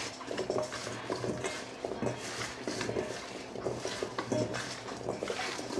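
Cubed red potatoes and cherry tomatoes being tossed by hand in a stainless steel mixing bowl, the pieces knocking and rattling irregularly against the metal.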